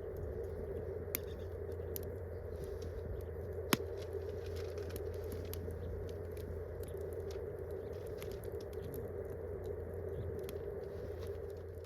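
Wood campfire crackling, with scattered sharp pops over a steady hiss; the loudest pop comes a little under four seconds in.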